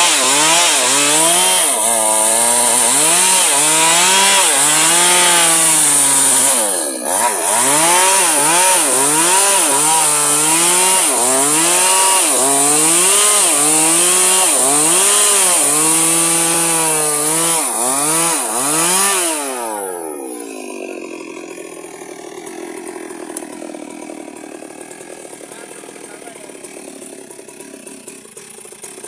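Electric chainsaw cutting firewood, its motor whine dipping in pitch and recovering again and again as the chain bites into the wood under load. About twenty seconds in the motor winds down to a stop, and only quieter noise remains.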